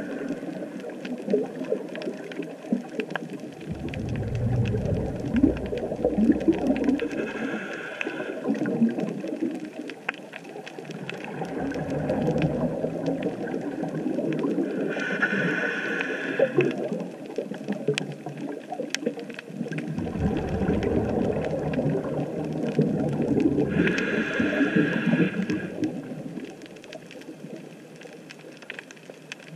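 Underwater sound through a GoPro camera housing: a scuba diver's regulator breathing in a slow, regular cycle. A hissing breath comes three times, about every eight to nine seconds, with bubbling rumbles between. A steady crackle of fine clicks from the reef runs underneath.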